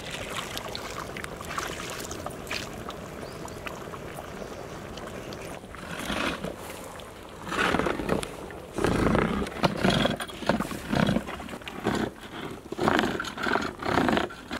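Coconut milk pouring into a large pot of simmering fish curry, a steady liquid hiss. From about six seconds in the curry is stirred and ladled, with irregular loud sloshing and scraping bursts.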